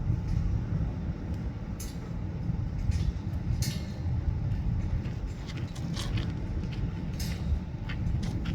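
Low, unsteady rumble of wind buffeting the microphone, with a few faint clicks and knocks.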